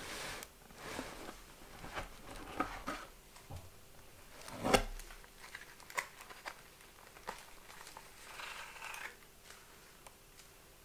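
Cardboard box packaging being handled and pulled apart by gloved hands: scattered rustles, scrapes and light knocks, with one sharper knock about five seconds in.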